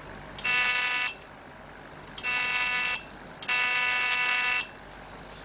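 An electric handpiece held against the skin gives a steady electronic buzz in three short bursts, each under about a second, as it is switched on and off.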